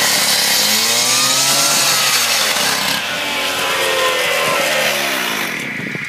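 Two-stroke concrete cut-off saw running with its engine pitch rising and falling under a loud hiss. The hiss drops away about five and a half seconds in and the engine slows.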